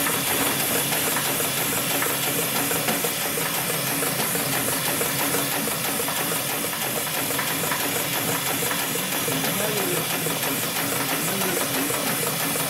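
Hightex #7373BP automatic spiral sewing machine running steadily, stitching a spiral seam through a stack of cloth discs for a buffing wheel, with a steady hiss over the mechanical noise.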